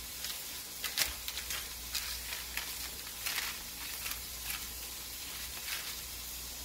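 Dinner cooking in the background, a steady sizzling hiss with irregular crackles and pops, over a low steady hum.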